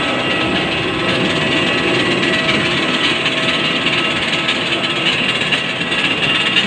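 Airliner engine noise on the apron: a steady rush with a few faint high whining tones held on top.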